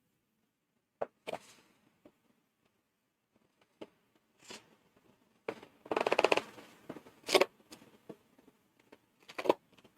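Plastic clicks and knocks from a Dell KB216 wired keyboard being handled. A brief crackling rattle comes about six seconds in, with a sharp click just after it and a few more clicks near the end.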